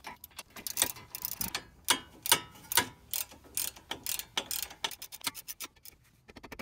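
Socket ratchet clicking in quick runs of strokes as the front brake caliper bracket bolts are run in, with a faster run about five seconds in.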